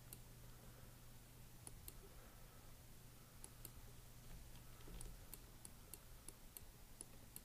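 Faint, scattered computer mouse clicks at an irregular pace, over a low steady hum.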